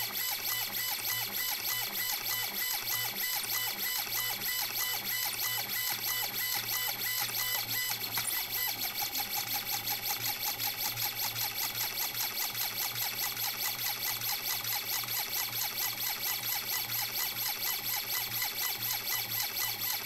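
Stepper motor of a robotic safe auto-dialer driving a combination dial round and back as it works through combinations, a steady electric whine with quick, regular pulsing that grows more even about eight seconds in.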